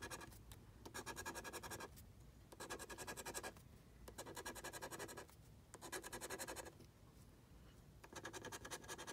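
A coin scraping the scratch-off coating of a lottery ticket in quick back-and-forth strokes, in bursts of about a second with short pauses between, five or six times.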